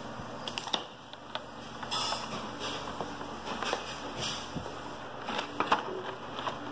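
Cardboard chocolate gift box being opened by hand: the sleeve pulled away and the flaps of the inner box lifted, giving scattered crackles, clicks and scrapes of the card, with a brief rustling stretch about two seconds in.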